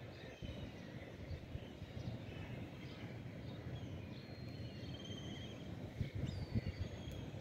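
Steady low rumbling outdoor background noise, with several short bird chirps and trills high above it, mostly in the second half, and a few dull low thumps about six seconds in.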